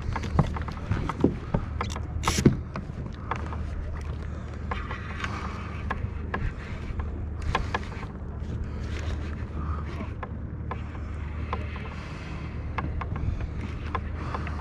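Irregular clicks and knocks of fishing tackle being handled on a plastic kayak, the loudest about two seconds in, over a steady low rumble.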